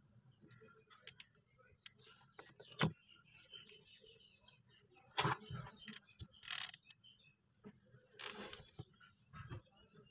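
Small workbench handling sounds: a few sharp clicks and knocks and short scraping bursts from tools and plastic parts, the longest near the end, as a screw is fitted into the worn switch housing of a child's battery ride-on motorcycle.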